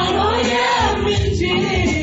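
Choir singing an Amharic gospel song, several voices together.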